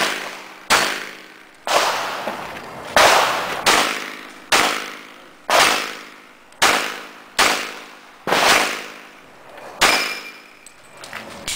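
Pistol shots fired one at a time, about eleven of them at an irregular pace of roughly one every second. Each is a sharp crack with a short echoing tail.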